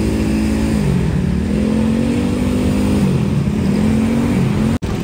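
Truck engine revving, its pitch rising and falling several times. The sound cuts out abruptly just before the end.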